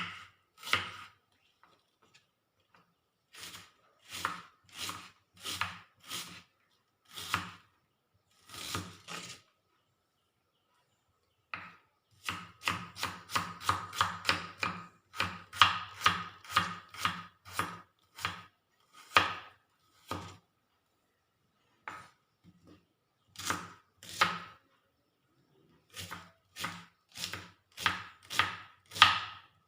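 Knife chopping on a cutting board, finely cutting up vegetables for a curry: a few separate strokes, then quick runs of several strokes a second with short pauses between runs.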